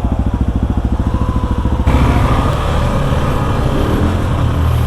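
Motorcycle engine idling with an even, rapid beat. About two seconds in, a fuller, rougher engine sound takes over.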